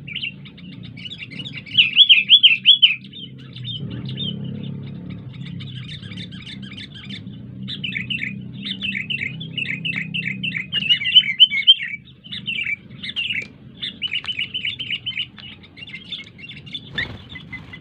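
Sooty-headed bulbul song: quick bubbling chirps repeated in bursts of phrases, over a low steady hum. A brief thump near the end.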